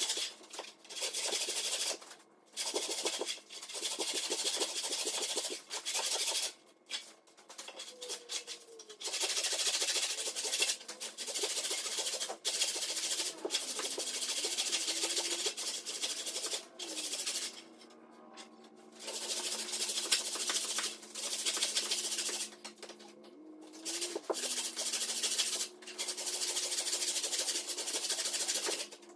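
Old hand rip saw cutting lengthwise through a log, a rasping sawing sound in runs of several seconds broken by short pauses.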